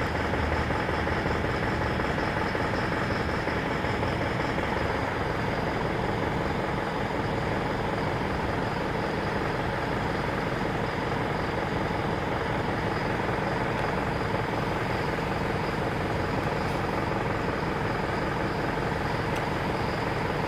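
Isuzu NPR truck's diesel engine idling steadily and evenly, with no speech over it.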